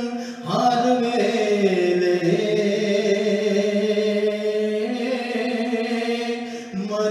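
A man's voice singing a naat in long held notes that step slowly between pitches, with a short break for breath about half a second in and another near the end.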